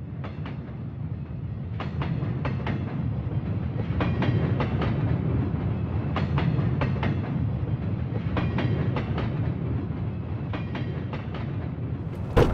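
Train rolling on rails: a steady low rumble with irregular clacks throughout, and a single sharp knock near the end.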